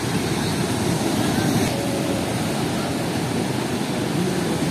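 Steady rushing noise of strong ocean surf breaking on a sandy beach, with wind buffeting the microphone.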